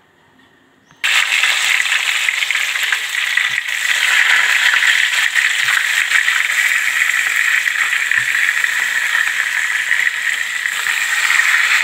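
Pieces of wet salted fish (ikan masin pirang long) deep-frying in hot oil in a pan: a loud, dense, steady sizzle with fine crackling that starts suddenly about a second in.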